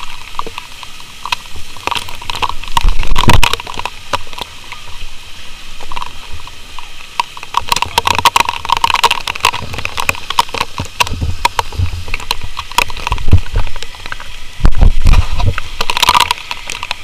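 Fire hose water spraying and splattering against a house, with scattered clicks and knocks from the jostled body-worn camera. Heavy low thumps come about three seconds in and again near the end.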